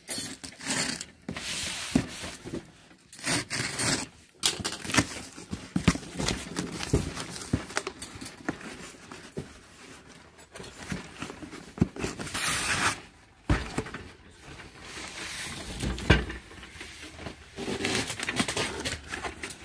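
Cardboard shipping box being unpacked by hand: packing tape slit and torn open with a utility knife, flaps pulled back, and smaller cardboard boxes inside shuffled and lifted out. The result is irregular scraping, rustling and tearing of cardboard with scattered light knocks.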